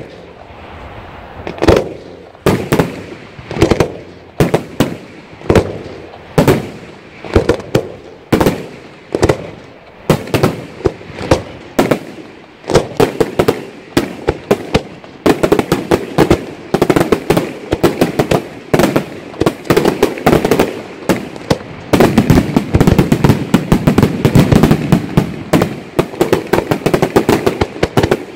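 Italian-style aerial fireworks shells bursting in a series of sharp bangs, a little more than one a second at first. After about twelve seconds the bangs come faster and overlap, and for the last six seconds or so they become a dense, rapid barrage.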